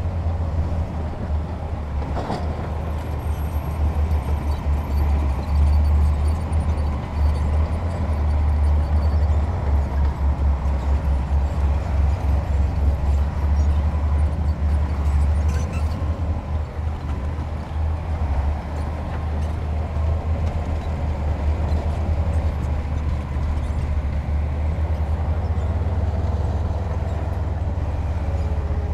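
Heavy diesel earthmoving machinery running steadily with a deep low rumble, and a faint steady whine above it. There is a short knock about two seconds in and another about halfway through.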